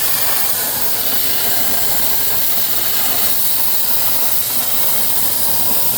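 CNC plasma cutter torch cutting metal parts, a steady hiss of the cutting arc and air jet with a low hum underneath.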